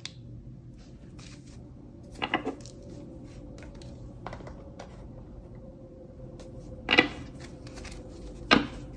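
Tarot cards being handled off camera: scattered light clicks and taps of card stock, with two sharper snaps, one about seven seconds in and one just before the end, over a faint steady hum.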